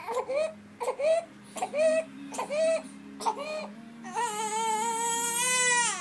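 Newborn baby crying: a run of short, sharp cries, then one long held wail from about four seconds in.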